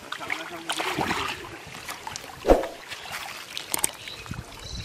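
Pond water sloshing and splashing as a bamboo-framed hand net is worked through shallow water, with one louder splash about halfway through.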